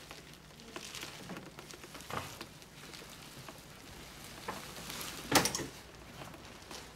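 Clear plastic dry-cleaning bags over hanging clothes rustling and crinkling as garments are handled on a closet rail, with scattered light clicks and one sharp knock about five seconds in.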